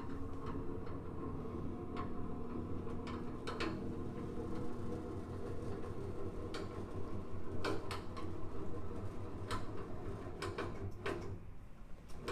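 A steady low hum, several held tones together, with about ten light clicks and taps scattered through it; the hum fades out about a second before the end.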